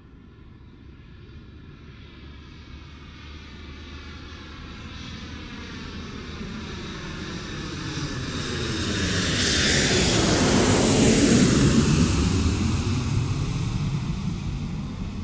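A vehicle passing by: a steady engine drone that builds slowly, is loudest about eleven seconds in, then fades away.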